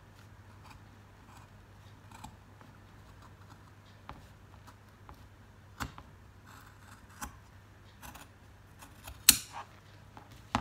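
Large fabric shears snipping through folded cloth to cut a curved neckline, a run of short soft blade clicks with a louder clack near the end.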